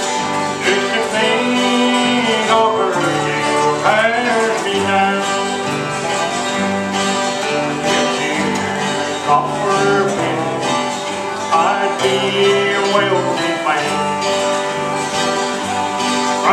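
Bluegrass band playing an instrumental break on acoustic guitars and banjo, strummed chords under a lead line that slides between notes.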